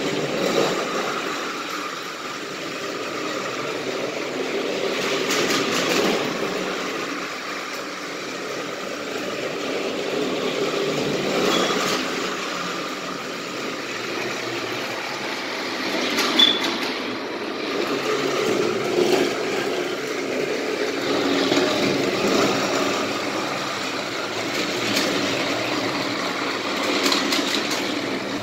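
Thomas & Friends motorized Kenji toy bullet train running on plastic track: a small electric motor whirring and the wheels and coaches rattling along the rails. The sound rises and falls in loudness every few seconds, with a few sharp clicks.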